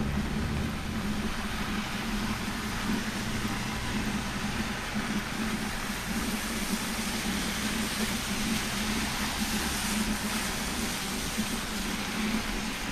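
Road traffic on a rain-soaked street: car engines running and tyres hissing on wet asphalt over a steady low hum. The hiss swells about two thirds of the way through as a car passes.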